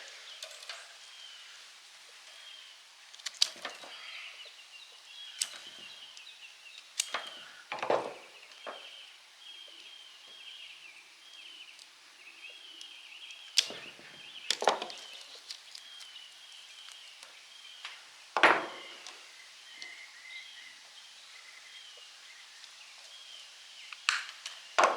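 Intermittent sharp snaps and clicks of hand tools working on an electric motor's wiring, about eight scattered through the stretch, the loudest two near the middle. A steady high chirping carries on in the background.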